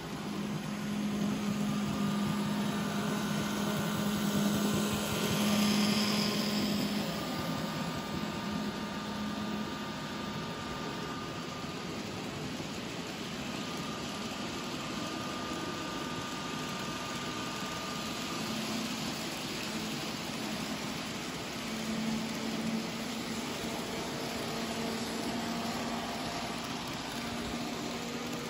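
N-scale model freight train running along the track: the locomotive's small electric motor hums steadily over a fine, rapid rattle of the little wheels on the rails. It swells about five seconds in as the train comes close, then runs on evenly.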